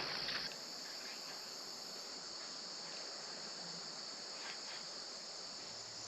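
A steady, high-pitched chorus of insects calling, with a slight drop in level about half a second in.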